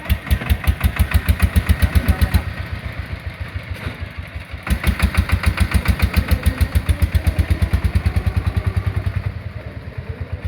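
Three-wheeled farm tractor's single-cylinder diesel engine running with an even beat of about seven firing pulses a second. It gets louder twice, near the start and again about halfway through, and eases back in between and near the end.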